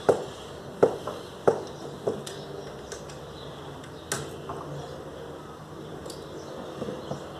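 Hand tools clicking and knocking against metal while a rubber hose is worked off a car engine: a handful of sharp clicks, most in the first two seconds and another about four seconds in, with quieter ticks after.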